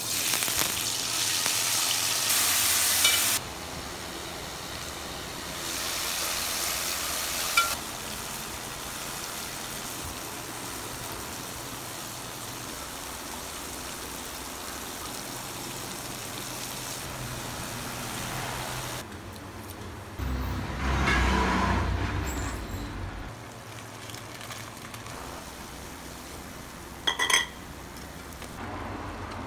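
Chopped onion, then tomato and green chilli, sizzling in hot oil in a steel pot, loudest for the first few seconds as the onion goes in. About twenty seconds in there is a louder rushing burst, and near the end a couple of sharp metal clinks from a spoon against the pot.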